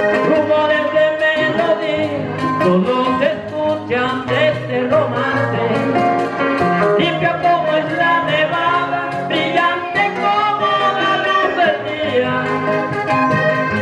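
Live vallenato music: a button accordion leads over guitar, with the rasp of a metal guacharaca scraper keeping a fast even rhythm and a man singing.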